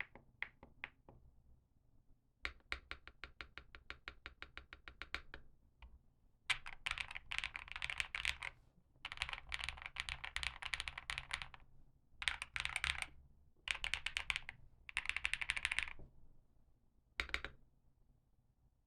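Stock Sugar65 mechanical keyboard with GMK Tiramisu clone keycaps and Lumia Matcha V2 switches being typed on. A few single keystrokes come first, then an even run of quick strokes, then several bursts of fast typing, each one to two seconds long, with a short final burst near the end.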